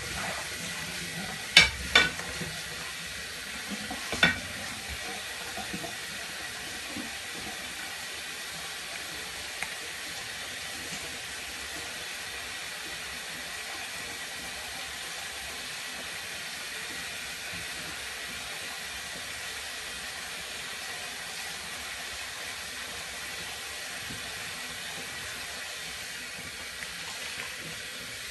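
Dishes being washed by hand at a sink under steady running water, with several sharp clinks of crockery in the first few seconds.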